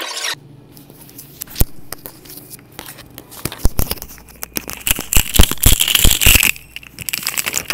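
Plastic ice cream wrappers crinkling as packs are handled in a store chest freezer: scattered crackles that build to a dense rustle about five seconds in, then die down.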